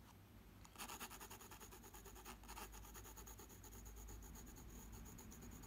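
Mitsubishi Uni graphite pencil hatching lightly on drawing paper: a quick run of short, repeated strokes, starting about a second in.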